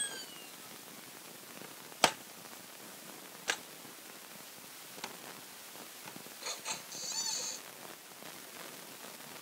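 Fisher-Price Laugh & Learn Puppy's Activity Home toy being worked by hand: a sharp plastic click about two seconds in, another a second and a half later and a fainter one after that, as its switches and parts are pressed, then a brief warbling electronic sound from the toy's speaker about seven seconds in.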